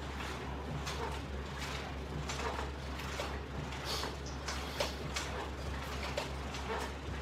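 Soft, short rustling and creaking sounds repeating roughly once a second as a person works through crunch repetitions with resistance-band straps, over a steady low hum.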